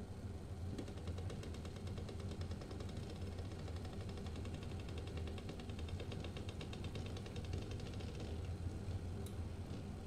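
Eggs boiling in water in a stainless steel pot, giving a fast, dense rattle of ticks. The rattle starts about a second in and fades near the end, over a steady low hum.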